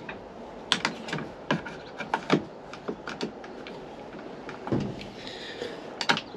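Hard plastic dash trim around a truck's steering column being handled and pried at by hand, giving irregular sharp clicks and knocks, about a dozen in all.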